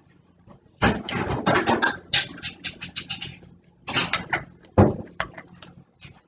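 A person chewing food with lip-smacking close to the microphone: runs of quick clicks. A fork scrapes and clicks on the plate near the end.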